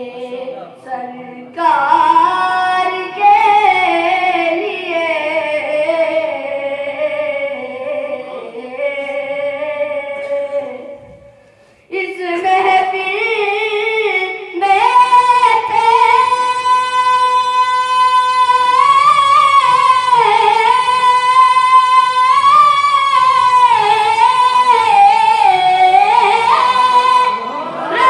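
A boy singing an Urdu naat, a devotional song, in long, drawn-out notes that waver and bend. The voice stops briefly near the middle, then comes back with long, high held lines.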